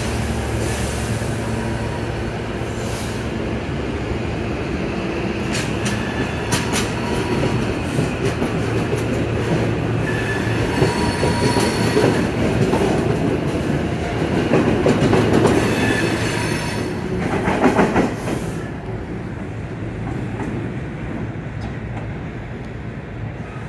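SEPTA Silverliner V electric multiple-unit train pulling out of the station and passing close by. A steady electric hum gives way to rising rolling noise, with wheels clicking over rail joints and brief wheel squeals. The noise drops away about 19 seconds in as the last car clears.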